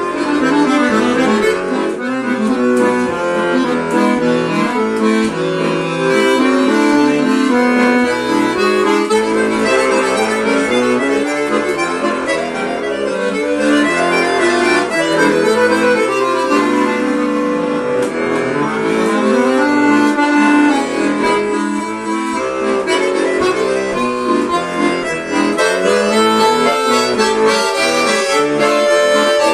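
Tula bayan, a Russian chromatic button accordion, played solo: a quick-moving melody of many short notes over lower held chords, without pause.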